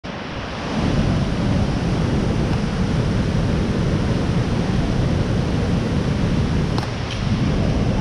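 Linville Falls' whitewater pouring between boulders into a narrow rock gorge: a steady, loud rush of falling water.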